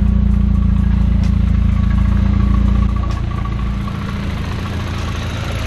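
VW MK4 1.8T turbocharged four-cylinder engine idling smoothly with no misfire, with a light chatter that the owner says is not rod knock but a worn clutch throwout bearing. The engine sound gets somewhat quieter about three seconds in.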